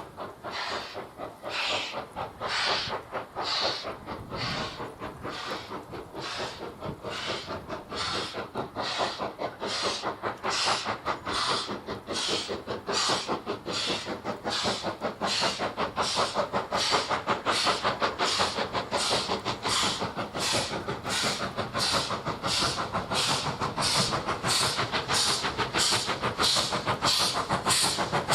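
Ivatt 2MT 2-6-2T tank engine's two-cylinder steam exhaust beating hard as it works up a steep gradient. The chuffs grow louder and quicken from about one a second to about two a second as the engine approaches.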